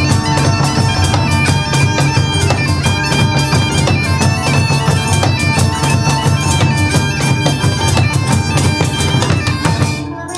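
Bagpipe music: a piped melody over a steady low drone, with fast, regular drumming. It breaks off near the end.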